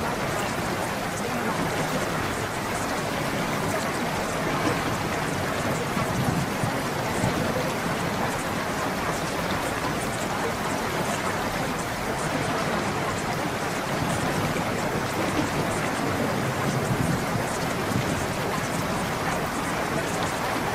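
Calm water cave ambience: a steady wash of running water with small drips all through it.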